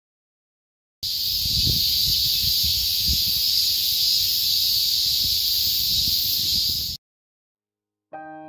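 Cicadas buzzing in a steady, high-pitched chorus, with some low rumble underneath. It starts abruptly about a second in and cuts off suddenly about two seconds before the end, and piano music starts near the end.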